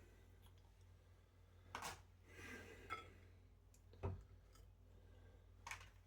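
Near silence over a low steady hum, with a few faint clicks and knocks from cutlery handling a cooked beef brisket.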